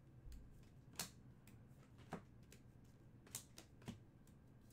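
A few faint, sharp clicks of chrome trading cards being flipped through a stack by hand.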